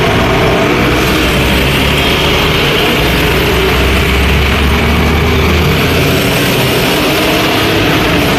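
Road traffic with diesel trucks and motorcycles passing close by. The low engine rumble swells for a few seconds mid-way as a loaded tanker truck goes past.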